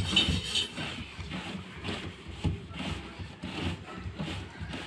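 Plastic check nut on a washing machine's drum suspension rod being twisted loose by hand: irregular rubbing, rustling and small clicks of plastic.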